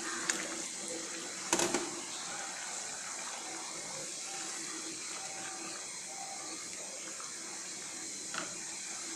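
Hot water poured into a pan of fried rice and spices, then stirred with a wooden spatula, under a steady hiss. A short cluster of knocks comes about a second and a half in.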